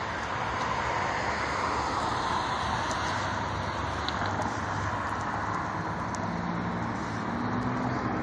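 Street traffic noise, a steady wash of passing vehicles. A low engine hum joins in about six seconds in.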